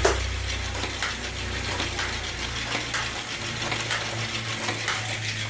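Adventure Force Scorpion motorized toy minigun running: its motor hums steadily while the belt-fed mechanism clacks sharply about once a second as it fires.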